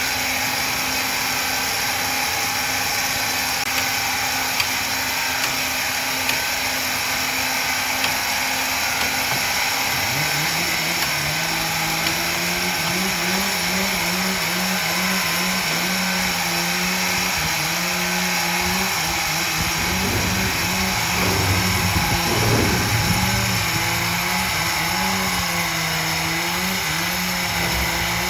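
Wood-processing machinery running steadily with a high whine. About ten seconds in, a motor's hum joins, its pitch shifting up and down as the load changes, and it grows louder for a couple of seconds past the middle.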